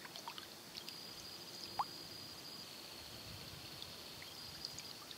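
Small water plips and drips from a school of small fish dimpling the surface of calm water, the loudest a single short rising plink about two seconds in. A steady high-pitched tone with short gaps runs underneath.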